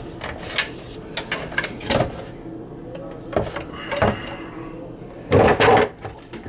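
PVC sink drain pipe being unscrewed and pulled off a drain tee: scraping of the plastic slip nut and small clicks, then two loud plastic knocks close together near the end.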